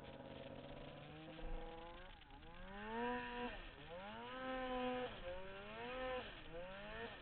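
Turbocharged 2008 Polaris Dragon 800 snowmobile's two-stroke twin revving up and dropping back four or five times, the pitch held briefly at the top of each rev.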